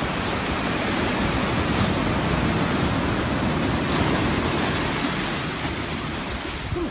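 Ocean surf washing in over the shallows, a steady rush of water that eases slightly near the end.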